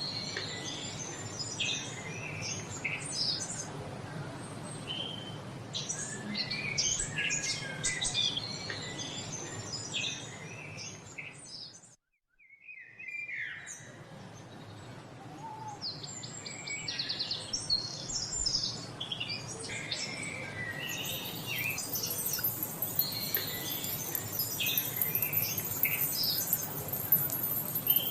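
Many songbirds chirping and singing together in a dawn-chorus-like mix of short calls and trills. About twelve seconds in the sound cuts out completely for about a second, then resumes, and in the last several seconds a very high, shrill shimmering layer joins the birdsong.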